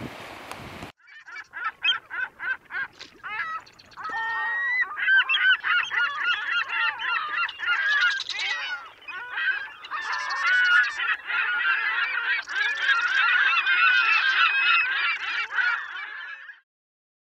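A flock of gulls calling: many harsh, overlapping calls, beginning about a second in as a quick run of short calls and thickening into a dense chorus that cuts off abruptly near the end. Brief surf and wind noise come before the calls.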